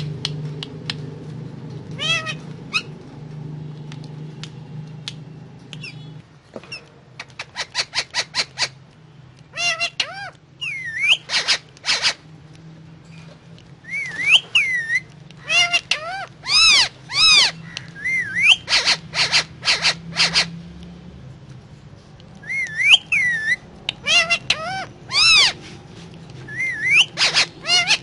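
Indian ringneck parakeet calling: after about six seconds it starts a quick run of short, shrill notes, then repeated squawks and whistles that swoop up and down in pitch, in clusters.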